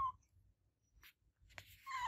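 A domestic cat meowing: the end of a short meow right at the start, then another meow beginning near the end.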